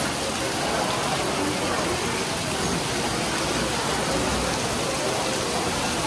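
Heavy tropical rainstorm: a downpour pouring steadily onto a paved patio, a continuous even hiss of rain.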